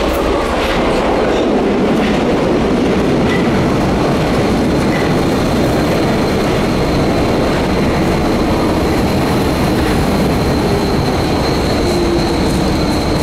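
Paris Métro line 13 train (MF 77 stock) coming out of the tunnel and running in along the station platform: steel wheels on rail and the train's running gear make a loud, steady rumbling rush. A thin high whine comes in partway through.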